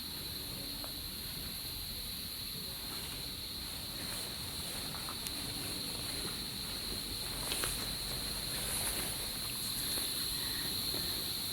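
Factory-hall background: a steady high-pitched whine with a fainter hiss above it, and a few faint clicks and knocks.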